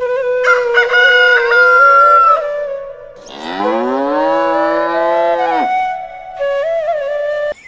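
A cow mooing once, a long low call that rises and then holds, starting about three seconds in and lasting over two seconds, over flute music with long held notes.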